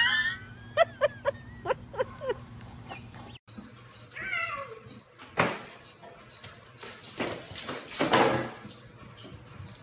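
A run of short, high yips and cries, then a kitten's falling meow and several sharp knocks and scrapes as the kitten blunders about with a cup stuck over its head and bumps a food bowl.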